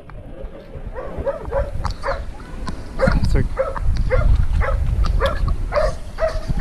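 Hunting dogs barking in a steady run of short barks, about two to three a second, starting about a second in, on a boar hunt. A low rumble sits underneath from about three seconds in.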